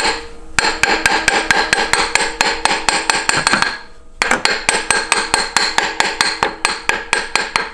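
Rapid metal-on-metal hammering, about eight ringing strikes a second, in two runs with a short break about halfway through: a tool being hammered against a seized small Torx bolt to break it loose.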